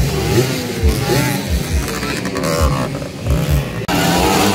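Motocross dirt bike engines revving, their pitch rising and falling, with repeated low thumps underneath. The sound breaks off abruptly about four seconds in and picks up again just as loud.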